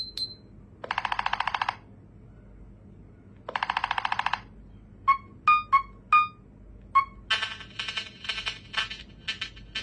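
Nothing Phone (1) ringtones and notification sounds played one after another. First come two buzzy electronic trills of about a second each, a few seconds apart. Then five short chirps at shifting pitch, and from about seven seconds in, a quick rhythmic run of electronic blips.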